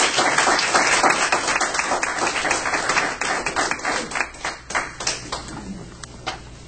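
A room full of people applauding: dense clapping at first that thins out over about five seconds into a few scattered claps near the end.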